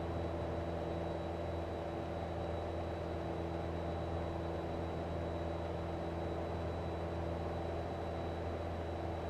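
Light single-engine aircraft's piston engine and propeller droning steadily in cruise, heard inside the cockpit. A thin, steady high whine sits above it.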